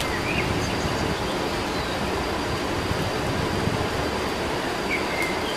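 Steady, even rushing outdoor noise, with a few faint bird chirps near the start and near the end and a thin, steady high-pitched whine.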